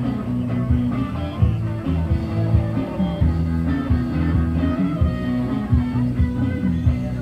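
A band playing rock music: electric guitar over bass and a steady drum beat.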